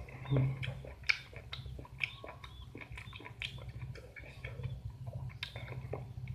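A man chewing young-mango rujak close to the microphone, with many short mouth clicks and lip smacks. A steady low hum runs underneath.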